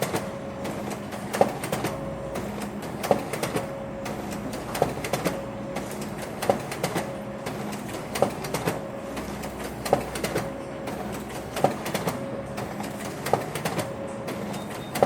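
Printer running in a repeating cycle: a sharp click about every second and a half or so, with a steady hum and light clatter between.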